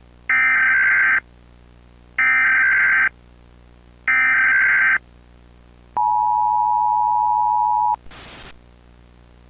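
Emergency Alert System tones: three short bursts of the warbling SAME header data signal about two seconds apart, then a steady two-tone attention signal for about two seconds. The tone ends with a brief burst of hiss.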